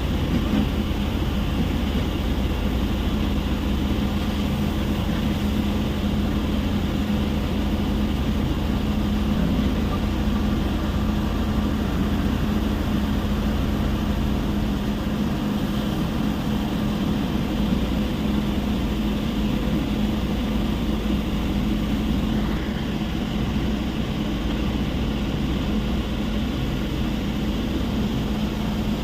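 Heavy machinery of a rock crushing plant running steadily: a continuous mechanical din with a steady hum underneath.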